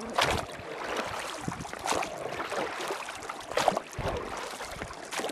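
Oars stroking the river water as a boat is rowed, a splash and swish about every second and a half, over the steady rush of the river.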